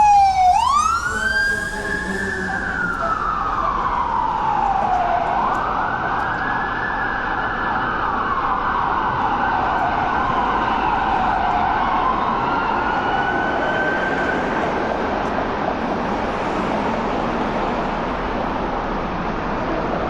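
Emergency vehicle siren wailing, its pitch sweeping slowly up and down, loudest at the start and fading away about two thirds of the way through, over a steady hum of street traffic.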